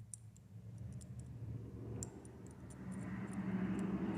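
Faint small clicks and rubbing as fingers turn a 3 mm threaded lead screw through a brass nut in a small aluminium part, over a low steady hum. The rubbing grows louder in the second half.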